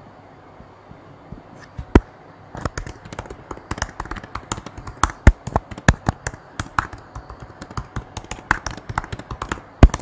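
A rapid, irregular run of sharp clicks and knocks, several a second, starting with one click about two seconds in.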